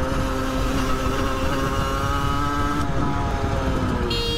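Sport motorcycle engine running as the bike rides through city traffic, heard from the rider's helmet camera over a low rumble, its note shifting about three seconds in. A horn starts honking near the end.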